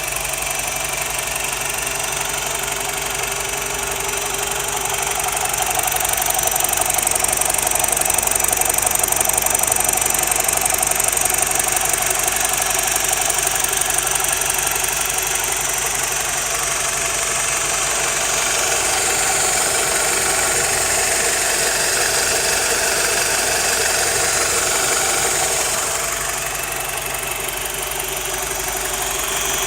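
BMW E87 120i four-cylinder petrol engine running with a rattle that makes it sound like a diesel; the source of the rattle is unknown to the owner. The sound is steady, easing slightly about 26 seconds in.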